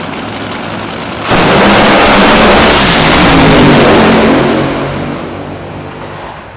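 Nitro Funny Car and Top Fuel dragster idling on the starting line, then launching at full throttle about a second in. The sound jumps suddenly to very loud and holds for about three seconds, then fades as the cars race away down the track.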